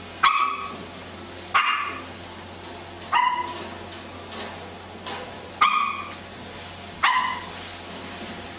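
A small dog barking five times, short sharp barks about one and a half seconds apart.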